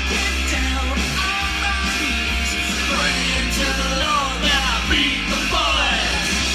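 A heavy metal record is playing, on the line between thrash and black or death metal. It has distorted guitars, drums and vocals.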